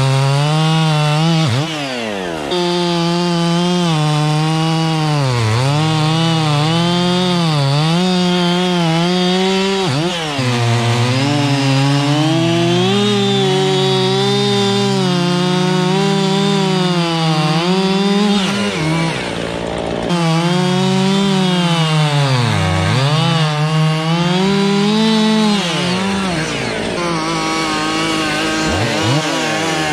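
Chainsaw cutting through oak, running near full throttle the whole time. Its engine pitch repeatedly sags as the chain bogs down in the wood and climbs back as it frees, with half a dozen deep dips.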